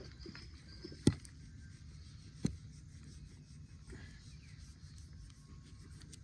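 Knife carving at the end of a wooden bow-drill bow stick: soft scraping and rubbing on wood, with two sharp clicks, one about a second in and one about two and a half seconds in.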